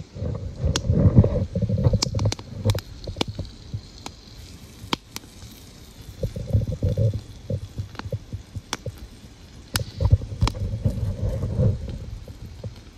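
Split-wood campfire crackling with sharp scattered pops. Three spells of low rumbling wind buffet the microphone and are the loudest sound.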